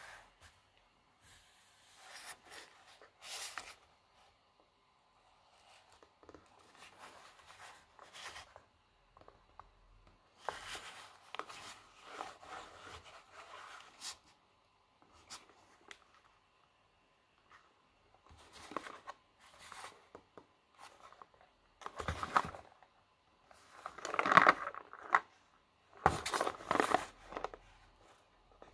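Small cardboard candy box being handled: fingers rubbing and gripping it, turning it over and sliding it on a wooden tabletop. The rustles and scrapes come in short scattered bursts, louder near the end.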